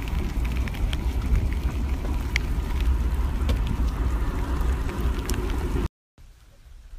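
Heavy wind buffeting on a phone microphone, a deep steady rumble with scattered sharp ticks through it. It stops abruptly about six seconds in, and a much quieter stretch follows.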